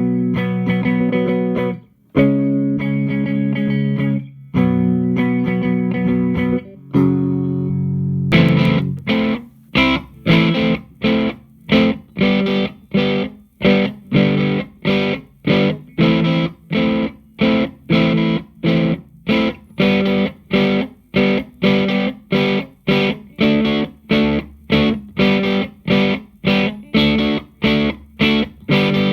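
Electric guitar played through a Hughes & Kettner Attax Metroverb 50-watt transistor amp. It plays four held chords, then from about eight seconds in a steady run of short, choppy chords, about two a second.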